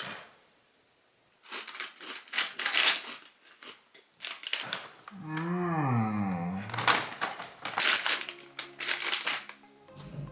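Someone chewing crunchy cheese-and-onion chips close to the microphone, in two runs of crunching, with a wavering hummed 'mmm' between them. Background music comes in near the end.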